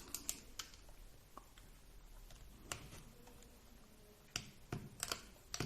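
Faint, irregular clicks and taps of small plastic RC car parts and wires being handled and pushed into place, about eight in all, a few more close together near the end.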